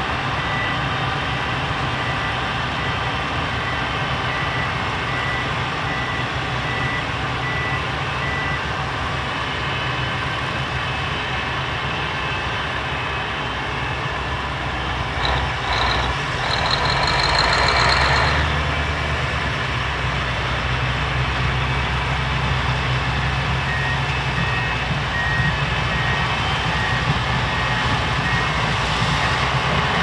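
Heavy diesel vehicle engine running steadily, with a reversing alarm beeping at an even pace for several seconds near the start and again near the end. About halfway through, the sound swells louder for a few seconds, with a brief high tone.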